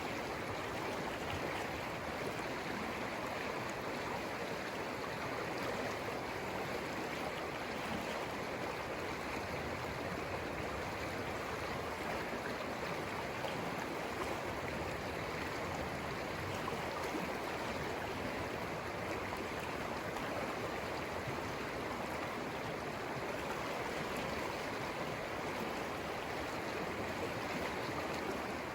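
River flowing: a steady, even rush of moving water with no breaks or changes.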